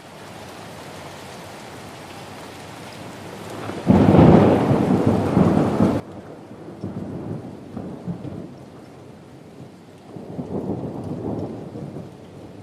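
Steady rain with thunder: a loud crack of thunder about four seconds in that stops abruptly two seconds later, then lower rolling rumbles that swell again near the end.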